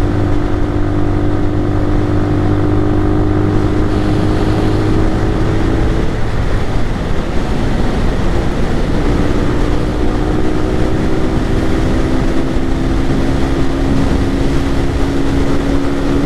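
Lifan KPR 200's single-cylinder engine running at high revs at highway speed, heard from the rider's seat under heavy wind rush. The steady engine note fades about six seconds in and returns a few seconds later at a slightly lower pitch.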